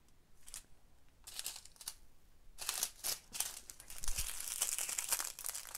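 Small plastic bags of resin diamond-painting drills crinkling as they are picked up and handled: a few short crackles at first, then denser, louder crinkling from about halfway through until near the end.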